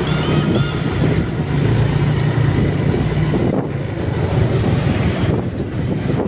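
Motorcycle engine running steadily while riding, with wind rushing over the microphone. Background music plays briefly at the start and stops within the first second.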